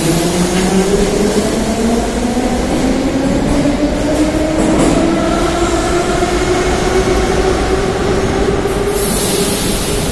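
Metro train accelerating away from the platform: the whine of its traction motors rises steadily in pitch over the rumble of the wheels on the rails. A short hiss near the end.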